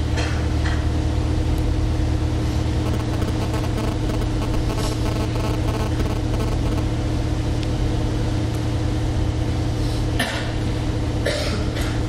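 A steady low hum at an even level, with a few short noises breaking in near the start, in the middle and twice near the end.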